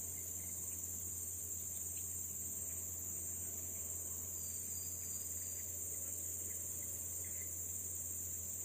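Steady, unbroken high-pitched insect chorus, with a low steady hum underneath.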